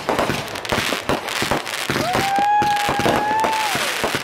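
Backyard consumer fireworks going off, a dense run of crackling pops and bangs. About halfway through, a steady whistle from a whistling firework rises over them, holds for nearly two seconds, and dips in pitch as it ends.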